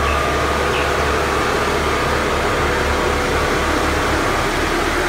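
Diesel engine of an XCMG XS123 single-drum road roller running steadily as the machine rolls over a dirt road: a constant low drone under a hiss.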